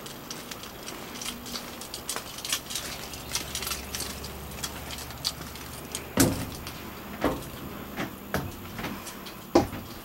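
Light clicks and rattles of handling at a travel trailer's entry door. Then, from about six seconds in, several heavy thumps roughly a second apart: footsteps climbing the entry steps and onto the trailer floor.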